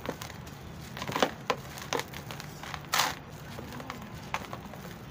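Dry lumps of grainy sand crushed and crumbled in gloved hands, giving irregular crunches with grains trickling into a basin. The loudest crunches come a little after a second in and about three seconds in.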